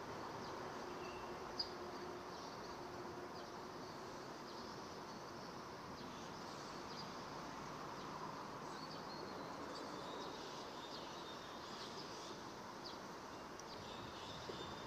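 Quiet riverside ambience: a steady, even hiss with faint, scattered high chirps, and one sharp click about a second and a half in.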